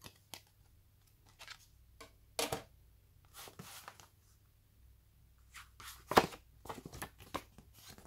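Hands handling a thin clear plastic cutting template and a paper user-manual booklet: irregular rustles, taps and crinkles, the loudest about six seconds in.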